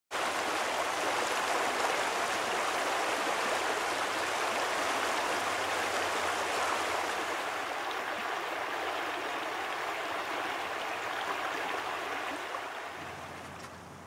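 A shallow river flowing over riffles: a steady wash of running water that fades out over the last couple of seconds.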